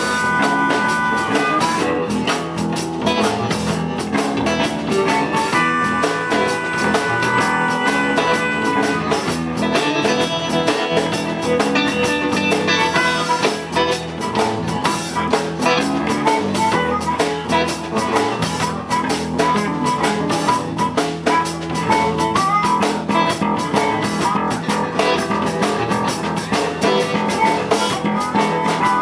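Live blues-rock band playing an instrumental passage: electric guitars, bass guitar and drum kit, with an amplified harmonica played into a vocal microphone.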